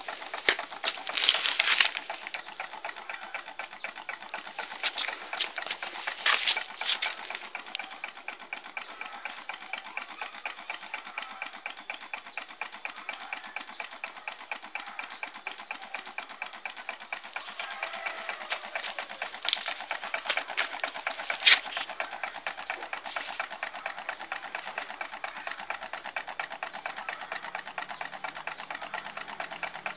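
Small homemade Stirling engine with a soft-drink-can displacer running, its crank and linkage giving a rapid, even mechanical clatter. A few louder clacks stand out in the first seconds and again around twenty seconds in.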